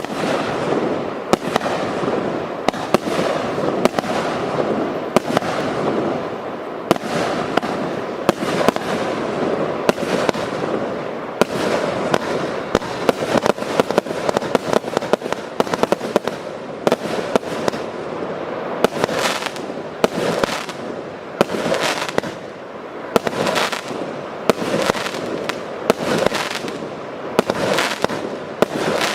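A 100-shot, 20 mm fireworks cake (TKB528) firing in rapid succession, starting abruptly. Sharp bangs come about two a second over a continuous rushing hiss of launches and bursts.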